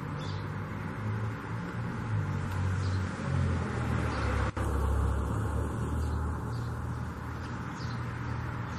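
Outdoor background: a steady low rumble of traffic, with a small bird giving short faint chirps every second or so. There is a brief drop-out about halfway through.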